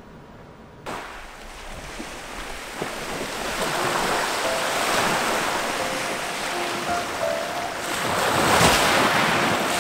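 Sea waves surging in and breaking on the shore. The sound starts about a second in, builds, and is loudest near the end. Soft piano notes sound faintly beneath it.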